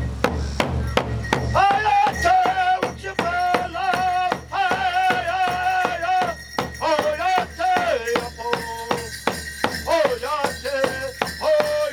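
A drum beaten at a steady pulse of about three beats a second, with a rattle shaking along. A high voice comes in about a second and a half in, singing a chant with long, wavering held notes.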